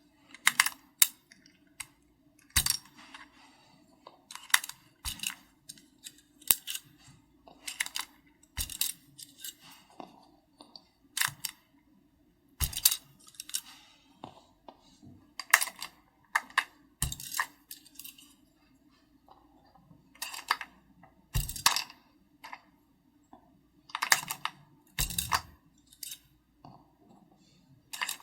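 Typing on a custom mechanical keyboard with Keychron Red linear switches in an SPM AL66B case with XVX comic-style keycaps: irregular runs of keystroke clacks with short pauses, a few heavier, deeper strokes among them.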